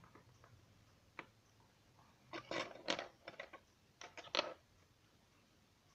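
Small metal clicks and rattles of watchmaker's tools against a watch movement clamped in a metal movement holder: a single click about a second in, then two short bursts of clicks.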